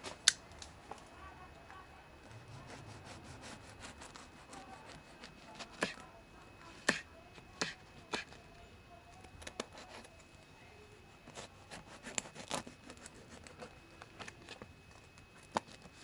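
Voltron V05 folding knife sawing through bread, with irregular crackling ticks and a few sharper, louder clicks as the blade works through the loaf.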